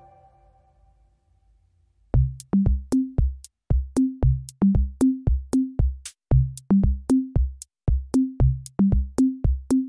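Background music: after a fade into near silence, an electronic drum-machine beat starts about two seconds in, with a steady kick drum, short bass notes and sharp clicks.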